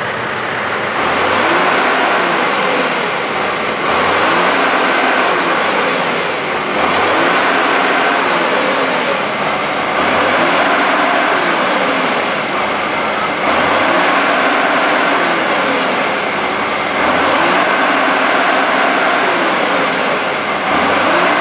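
Vehicle engine running and revving up and down, the rise and fall repeating every three to four seconds.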